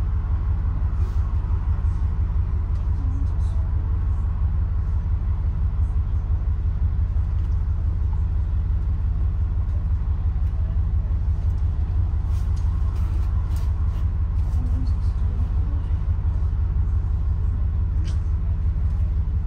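Steady low rumble of a city bus in motion, heard from inside the passenger cabin: engine and road noise, with a few faint clicks.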